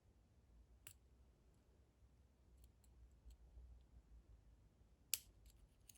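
Faint, sparse metallic clicks of a dimple pick working the pins inside a Lince dimple padlock, with a sharper click about five seconds in.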